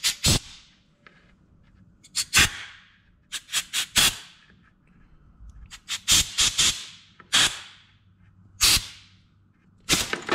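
Compressed-air blow gun fired in a series of short hissing blasts, some in quick clusters, into the ports of a Keihin carburetor from a 2016 Suzuki RM85 two-stroke dirt bike. The air is blowing out the main jet, needle jet and air screw passages to clear oil residue during a carb clean.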